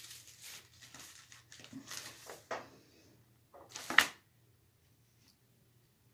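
Handling noise: irregular rustling of paper and the camera being moved, then one loud sharp rustle-bump about four seconds in, close to the microphone. After that only a faint steady low hum.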